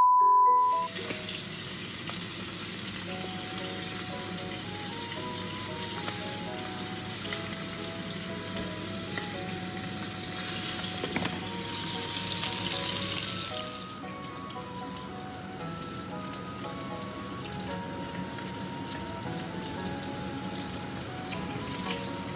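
Food sizzling in hot oil in a frying pan, a steady hiss that grows louder for a few seconds near the middle. It is opened by a short steady test-tone beep.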